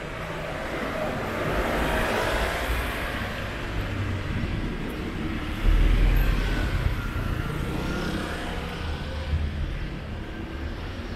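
Road traffic passing on a city street, with a heavier low rumble that starts suddenly about halfway through and then eases.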